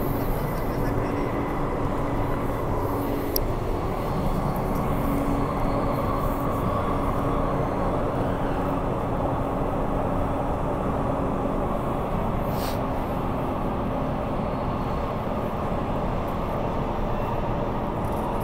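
Inside the carriage of a Bombardier/Downer electric multiple unit running through a tunnel: a steady rumble from the running train with a low hum under it, and a couple of brief ticks.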